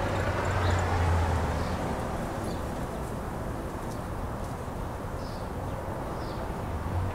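Steady outdoor background noise with a low hum that swells over the first second and a half and again near the end, and a few faint, short, high chirps in the second half.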